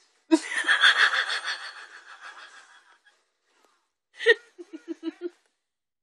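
A person laughing: a long, breathy laugh that fades out over about two and a half seconds, then a second short laugh about four seconds in, in quick rapid pulses. The laugher is sick, which colours the laugh.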